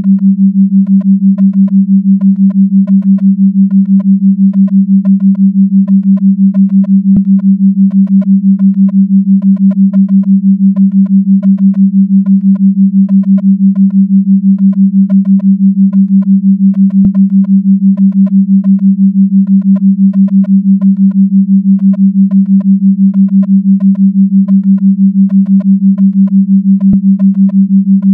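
Synthesized low electronic tone held steady and pulsing rapidly in loudness, a 6 Hz brainwave-entrainment beat, with faint ticks repeating above it and a thin click about every ten seconds.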